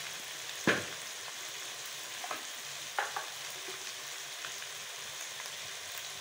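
Minced beef frying in ghee in a karahi, with a steady sizzle. A wooden spatula knocks against the pan a few times, loudest about two-thirds of a second in.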